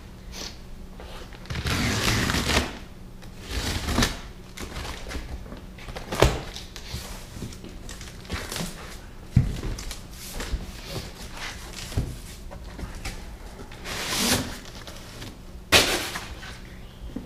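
A cardboard shipping box being unpacked: plastic wrap rustling and being pulled off, cardboard flaps handled and opened, with several sharp knocks and thumps along the way.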